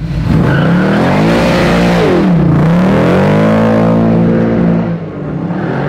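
540 cubic inch big-block V8 in a 1970 Jaguar XJ6 revving hard during a burnout. The revs climb, drop sharply about two and a half seconds in, climb again and hold, then fall off near the end.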